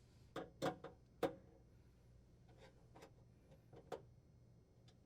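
A few light, irregular clicks and taps of a screwdriver working the screws on the cooktop's clamping brackets, the loudest about a second in and fainter ones later.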